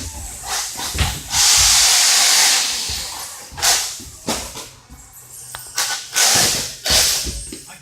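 Radio-controlled cars running on a dirt track: repeated bursts of hissing noise, the longest starting about a second and a half in.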